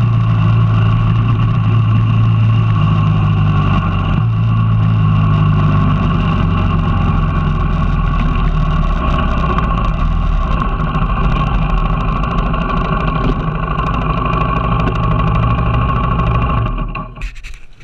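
Off-road motorcycle engine running loud and steady as the bike rides along a dirt track, its note easing down a little partway through. The engine sound drops away sharply near the end as the bike pulls up.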